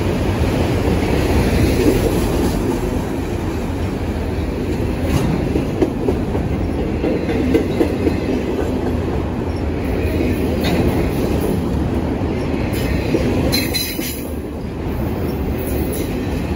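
CSX freight train of enclosed autorack cars passing close by: a loud, steady rumble of steel wheels on rail, with a few sharp clicks as wheels cross rail joints.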